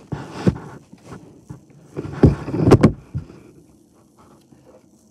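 Knocks and rustling of things being handled close to the microphone, loudest in a cluster about two to three seconds in, then quiet.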